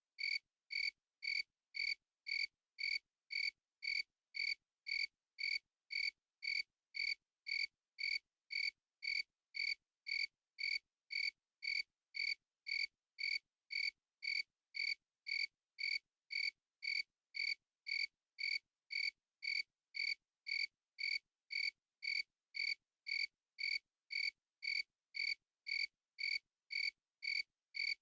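A cricket chirping in a very regular rhythm, about two short chirps a second, each a clear high tone, with complete silence between chirps.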